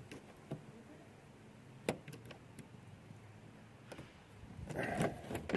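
A few sharp small clicks, the loudest about two seconds in, then scraping and rustling near the end, as the window winder handle's metal retaining clip is pushed back in with a hook tool.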